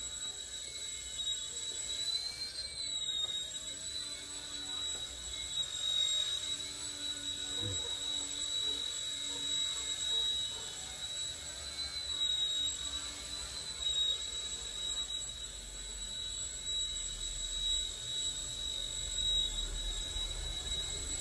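XK K127 RC helicopter in flight, its small electric main and tail motors giving a steady high-pitched whine that wavers slightly now and then.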